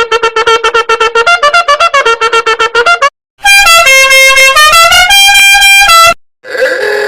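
Meme sound-effect clips with horn-like tones. First a rapid run of short beeps steps through a tune. After a brief break, a loud horn-like melody of held notes follows. Near the end a short, noisier clip begins.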